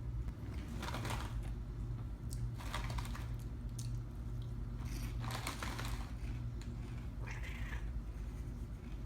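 Cat crunching tortilla chips: several short, crackly crunches at irregular intervals, over a steady low hum.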